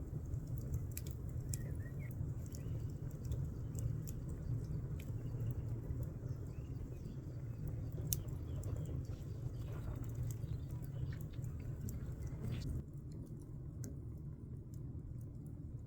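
Steady low wind rumble with scattered sharp clicks and a few faint bird chirps. The rumble and clicks drop off abruptly about thirteen seconds in.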